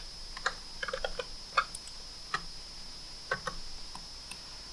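Scattered clicks of a computer mouse and keyboard, several in quick succession at times, over a faint steady high-pitched whine.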